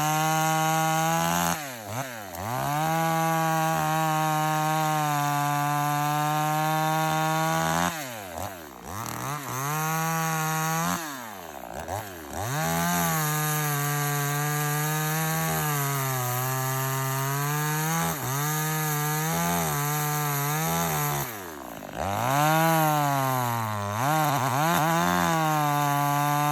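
Cx1202E chainsaw running at high revs with its pitch sagging and wavering. Four times the revs fall away and then pick straight back up.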